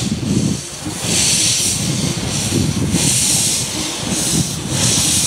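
A 15-inch gauge steam locomotive pulling away slowly with its cylinder drain cocks open. Steam hisses out in repeated blasts, about one a second, over the low rumble of the engine and train.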